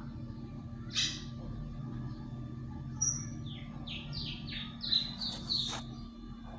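Pet bird chirping: a single call about a second in, a short high whistle about three seconds in, then a quick run of about eight falling chirps, over a steady low hum.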